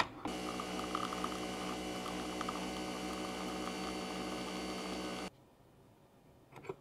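A steady electrical-sounding hum with many even overtones that cuts off suddenly about five seconds in.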